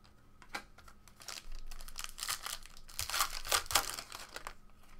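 A foil trading-card pack wrapper being torn open and crinkled by hand: a run of crackling rustles that starts about half a second in, is loudest a little past the middle, and stops near the end.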